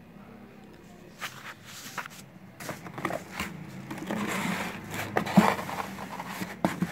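Bubble wrap around a boxed food chopper crinkling and rustling against a cardboard carton as it is handled, with irregular crackles and knocks starting about a second in.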